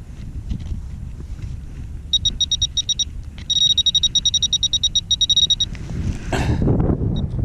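Metal detector pinpointer beeping rapidly on a small coin target. There is a short run of quick beeps, then a longer, faster run that is almost continuous as it closes on the coin. A brief scrape of dirt being handled follows near the end.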